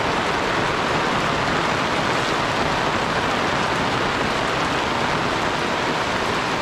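A steady, even hiss like rain falling, with no breaks or single sharp sounds.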